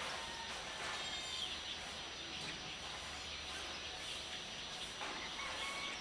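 Dawn chorus of many small birds chirping and twittering over a steady background of outdoor ambience, with a few clearer whistled notes standing out about a second in and again near the end.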